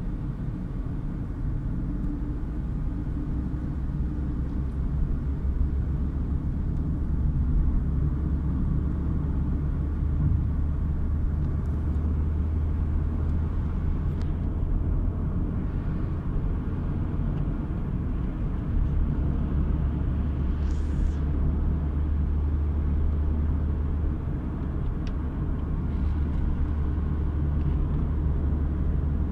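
Steady low rumble of a car's engine and tyres on the road, heard from inside the cabin while driving at motorway speed.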